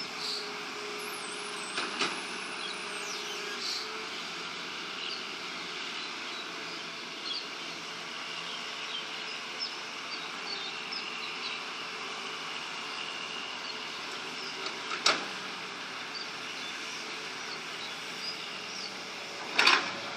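An excavator's engine running steadily while it dredges, with a few sharp knocks. The machine is low-powered, so its engine sounds a little rough.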